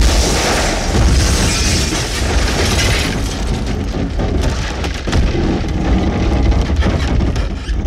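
Loud explosion-style intro sound effect: a steady blast of noise with heavy deep bass and many sharp crackles.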